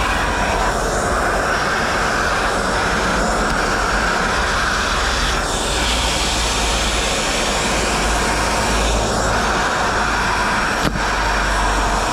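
Kärcher NT 15/1 Premium 1400 W wet/dry shop vacuum running, its motor whining steadily with air rushing through the hose. The air noise changes briefly several times, and a sharp click sounds near the end.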